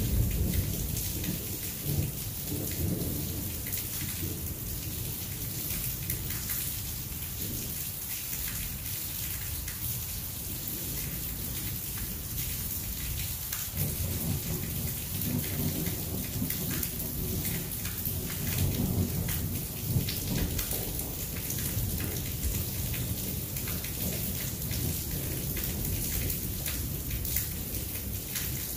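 Heavy thunderstorm rain falling steadily, with many single drops clicking close by, under a low rumble of thunder that rises sharply about halfway through and rolls on.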